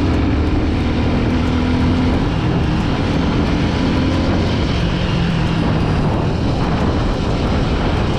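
Suzuki Gixxer 250 motorcycle's single-cylinder engine running while riding, its note shifting lower and higher as speed changes, with wind noise on the helmet microphone.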